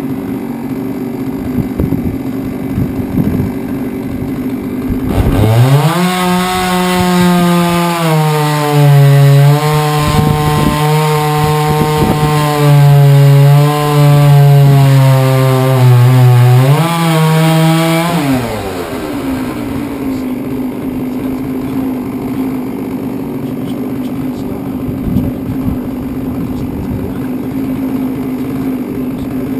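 Huztl MS660-clone 99cc two-stroke chainsaw on a chainsaw mill, idling, then revved to full throttle about five seconds in. It rips through a log for about twelve seconds, its pitch sagging and recovering under the load of the cut, then drops back to idle. It revs up again right at the end.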